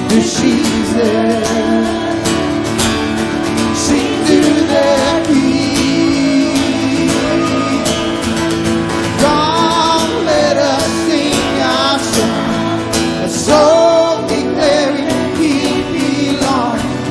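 Congregational worship music: singing over strummed acoustic guitar and band accompaniment.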